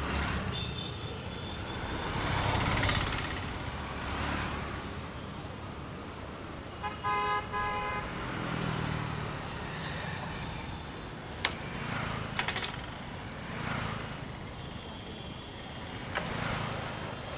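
Street traffic: vehicles passing one after another in swells, with a vehicle horn tooting in short blasts about seven seconds in and a few sharp clicks near twelve seconds.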